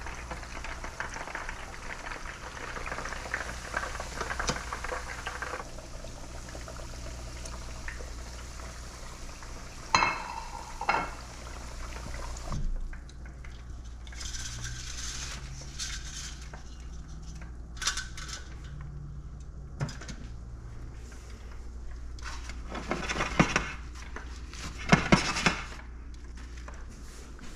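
Breaded gar pieces deep-frying in a pot of 350-degree oil: a dense, crackling sizzle for the first half. Then the wire fry basket clinks and clatters against the pot as the fried pieces are lifted out, followed by scattered handling clatter as they are laid on paper towels.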